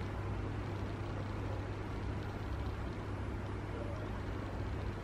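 Steady low hum with an even hiss of background noise, with no distinct knocks or calls.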